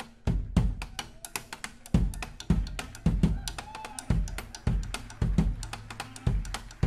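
A drum kit with TRX cymbals played live in a steady groove: heavy kick drum hits roughly twice a second under rapid cymbal or hi-hat ticks.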